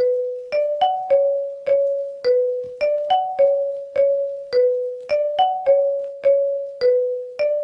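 A mobile ringtone tune that starts suddenly out of silence: a short, bell-like keyboard phrase of single struck notes, about two a second, repeating about every two seconds.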